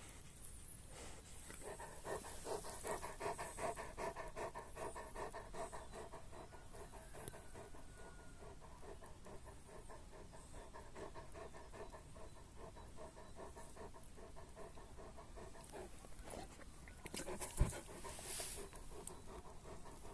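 Large dog panting rapidly and rhythmically, loudest in the first few seconds. A single sharp click near the end.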